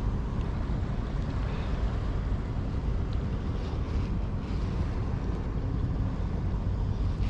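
Steady low rumbling noise of wind buffeting the microphone, with a faint hiss of the sea behind it.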